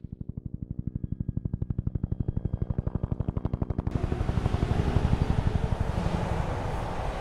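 Dirt bike engine idling: a rapid, even chugging of about a dozen beats a second. About four seconds in it cuts abruptly to louder, rougher engine noise.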